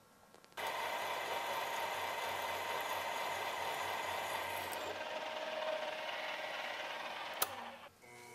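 A drill press running with its bit cutting into a crankshaft counterweight, removing metal to correct the balance. Steady whirring that starts about half a second in, with a sharp click shortly before it stops near the end.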